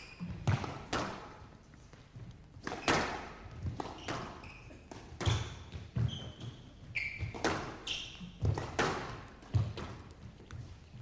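Squash rally: the ball cracks off the rackets and thuds against the walls, a sharp hit about every second, with short high squeaks of shoes on the court floor a few times in the middle.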